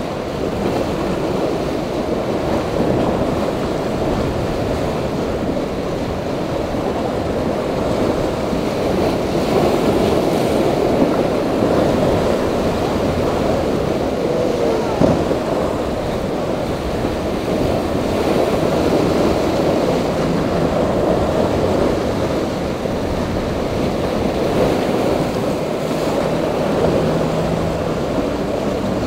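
Rough surf and breaking waves washing steadily, with wind buffeting the microphone and a single sharp thump about halfway through. A boat's outboard motor can be faintly heard under the surf near the end.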